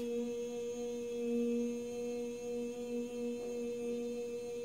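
A woman's voice humming one long, steady, unbroken note.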